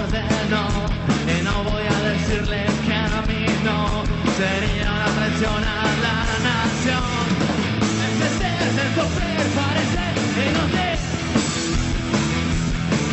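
A rock band playing live: a singer singing into a microphone over electric guitar, bass and drums with a steady beat.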